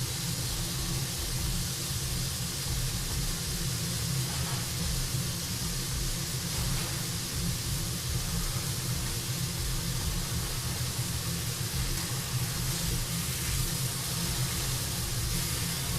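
Minced beef sizzling steadily on a hot ceramic grill pan under a splatter guard, with a low steady hum underneath.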